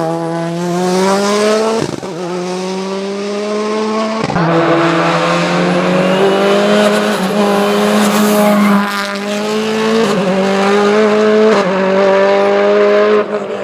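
Mitsubishi Lancer hill-climb prototype's engine at full throttle: the revs climb and two quick upshifts cut in about two and four seconds in, then the engine is held high, with brief small dips in revs.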